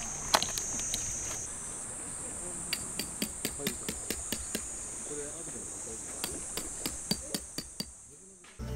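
Sharp knocks of a hammer driving tent pegs, a few a second at uneven spacing, over a steady high-pitched insect drone; the sound fades away near the end.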